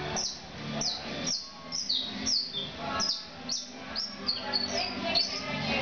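Caged yellow canario, a canary-type finch, singing a run of short, high chirps. Each note sweeps quickly downward, coming about two to three a second, over a faint steady low hum.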